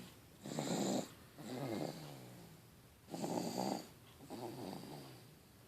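A sleeping baby snoring: two slow breath cycles, each a louder snore (about half a second in and again about three seconds in) followed by a softer, wavering one.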